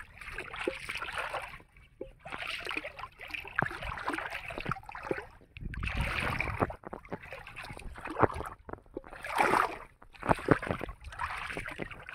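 Shallow water splashing and sloshing in repeated bursts with short pauses, as a gill net is hauled up and worked through the water by someone wading in it.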